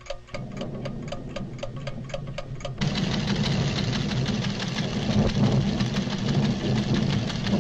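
A seismograph's recording mechanism ticking quickly, about five ticks a second, with a low rumble joining it shortly in. About three seconds in, the ticking gives way to a louder, steady deep rumble, the sound of the volcano's renewed tremors.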